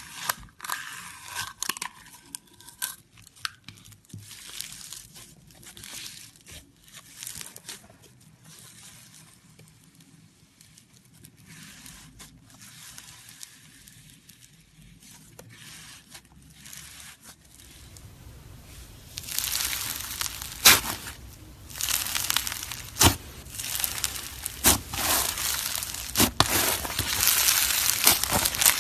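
Slushee slime being squeezed and poked, making quick crunchy crackles and crinkles. The crackling gets louder and denser about two-thirds of the way through.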